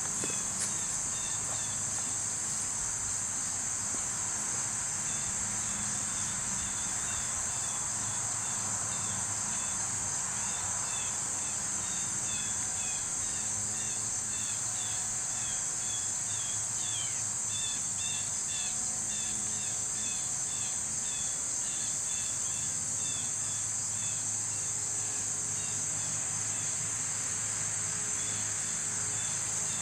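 Steady high-pitched drone of an insect chorus, with short repeated chirps joining in a few seconds in.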